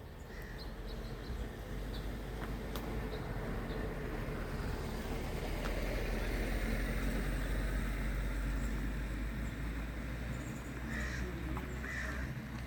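A vehicle's low rumble swells to its loudest about halfway through and then eases off. A few sharp taps come in the first half, and near the end there are two short raspy calls, typical of a red-headed woodpecker.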